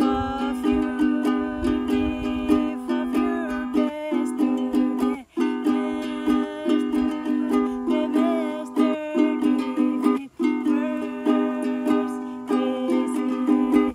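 Ukulele strummed in a steady rhythm, with a voice singing along. The playing breaks off for a moment twice.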